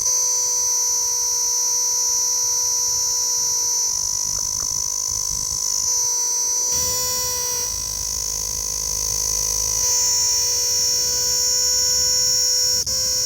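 Insect trilling in a loud, steady, high-pitched drone without a break: the all-night call of a night-singing insect.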